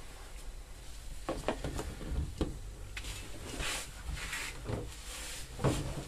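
Washing-machine inlet hose being unscrewed by hand from the wall tap through a cloth: a run of small clicks and knocks with cloth rustling.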